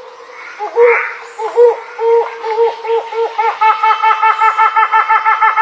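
Helmeted hornbill calling: a series of loud hooting notes, spaced out at first, that speed up about halfway through into a fast, even run of repeated notes.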